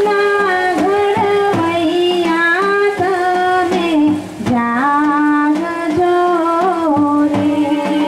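A man singing a slow Gujarati patriotic-devotional song into a microphone, holding long notes that slide and waver between pitches, with light percussion strokes behind the voice.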